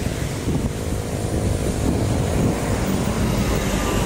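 Wind rushing over the microphone of a camera carried along on a moving bicycle: a steady low rumble.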